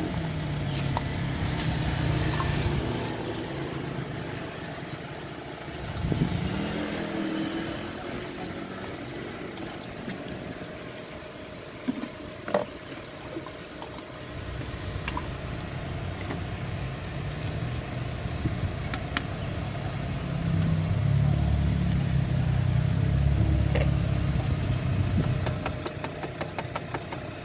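Motor vehicle engines running close by, with one revving up about six seconds in and the loudest engine sound in the last several seconds. A couple of sharp clicks come midway.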